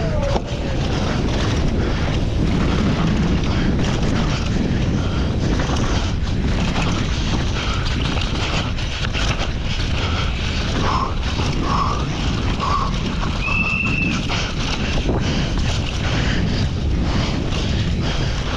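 Downhill mountain bike descending a dry dirt trail at speed: wind rushing over the camera microphone, tyres rumbling on dirt, and the bike's chain and frame rattling in a constant stream of knocks.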